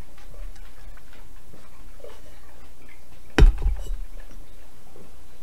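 Faint light clicking of a Great Dane's nails on the floor, then one sharp knock about three and a half seconds in, with a brief ring: a drink bottle set down on a desk.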